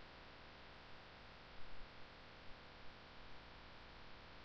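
Faint steady hiss and hum of a desk recording setup, with a few faint mouse clicks as bones are selected on screen.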